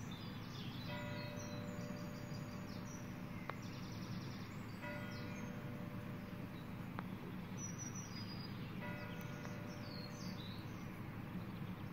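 Outdoor quiet of a silence held in the open: small birds chirping and singing over a steady low rumble. A short held tone recurs about every four seconds.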